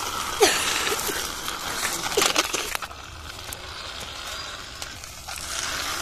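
Small plastic toy car's wheels rolling and scraping over a rough concrete ledge, a gritty crunching noise with a few clicks and short squeaks in the first three seconds, then softer.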